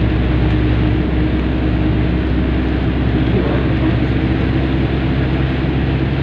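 Car cabin noise while driving on a highway in heavy rain: a steady low engine and road drone under a continuous hiss of tyres running through water on the road.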